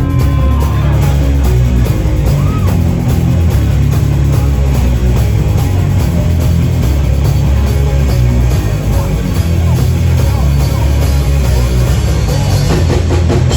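Live rock band playing loudly through a PA: bass guitar, drum kit and electric guitar, with heavy low end.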